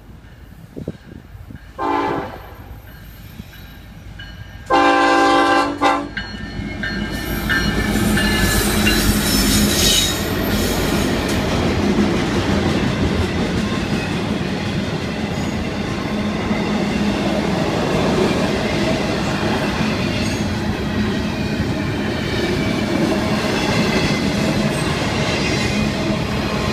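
Freight locomotive horn sounds a short toot about two seconds in, then a longer blast near five seconds. The intermodal freight train then passes close by with a steady rumble and the clickety-clack of wheels on the rails, loudest from about seven seconds on.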